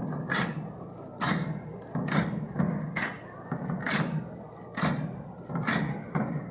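The slow march beat of the Armats' step: a sharp strike with a low thud about once every second, in a steady rhythm.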